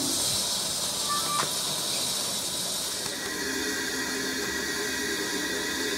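Steam hissing steadily from a valve fitting on the NZR Ka-class steam locomotive KA942, with a faint click about a second and a half in.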